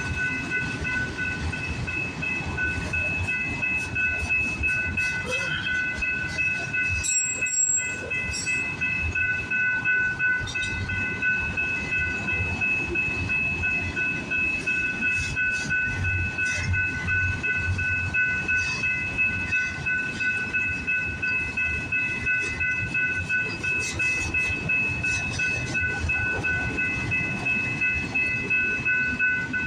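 Freight train rolling past, a continuous rumble of wheels with clacking over the rails. Three steady high ringing tones sound through it the whole time.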